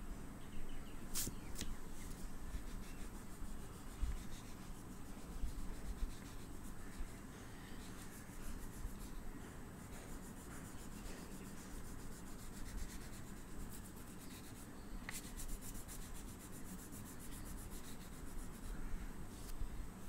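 Oil pastel rubbing and scratching across paper as colour is laid on in repeated strokes, with a couple of sharp clicks.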